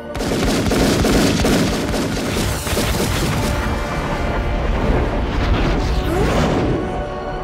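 Film sound effects: a sudden, dense volley of pistol gunfire with deep booms, mixed with dramatic score music.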